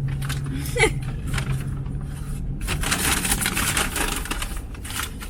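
Rustling and clicking of fast-food paper bags and wrappers inside a car, over a steady low hum from the idling engine that stops about halfway through.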